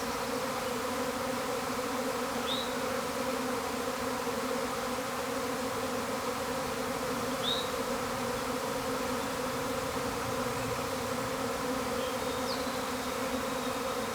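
A huge mass of honeybees flying around the hive, making a loud, steady, many-layered hum. The beekeeper takes it for the sound of the colony swarming.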